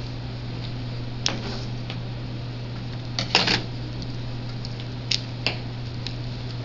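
A few sharp clicks and taps of hardened isomalt sugar pieces handled on a stainless steel worktable, loudest in a quick cluster about three seconds in, over a steady low hum.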